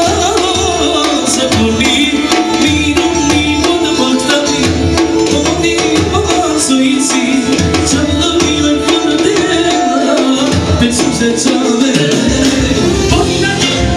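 Live band dance music: a wavering saxophone melody over percussion and bass with a steady beat.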